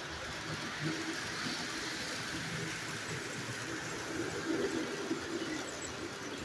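Electric model trains running on a layout: a steady rumble and whir of motors and wheels on the track, with a few light clicks about four to five seconds in.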